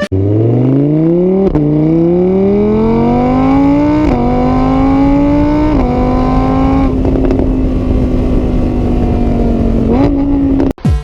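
Car engine accelerating through the gears: its pitch climbs, drops back at three gear changes, then holds steady at speed until it cuts off abruptly near the end.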